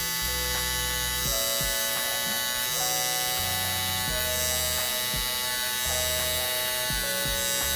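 Cordless hair trimmer with a T-blade running with a steady buzz as it cuts along the front hairline, with background music underneath.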